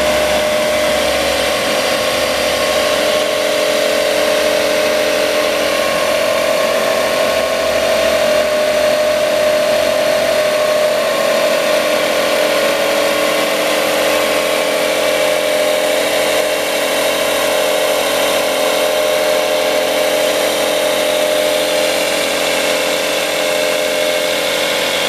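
Porter-Cable industrial belt sander running steadily, its motor and belt giving an even mechanical hum with a constant whine.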